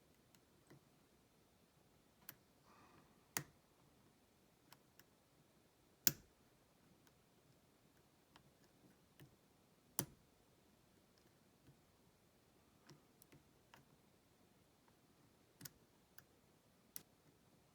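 Sharp, scattered single clicks of a pin-tumbler padlock being picked, as the pick and tension wrench work the pins. The clicks are sparse and irregular over near silence, the loudest about six and ten seconds in.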